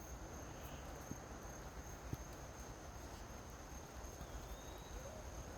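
Faint outdoor ambience with insects trilling steadily at a high pitch. There are two small clicks about one and two seconds in, and a few faint short low tones near the end.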